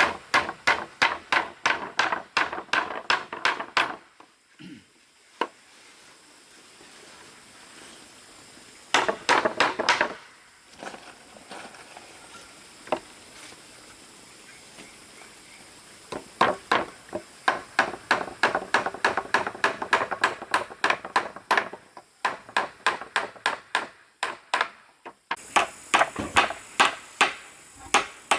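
A hand tool striking wood in quick repeated blows, about three or four a second, in four bursts with pauses of a few seconds between.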